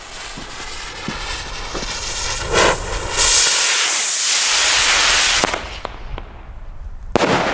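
Weco Blue Hawk firework rocket: the fuse sizzles for about three seconds, then the motor ignites with a loud rushing hiss that fades as the rocket climbs away. A sharp bang comes near the end as it bursts.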